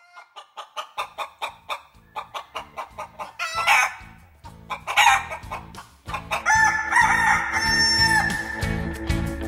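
Chickens clucking in short, even pulses, then a rooster crowing several times, the last crow held long, over a rhythmic music backing that builds in.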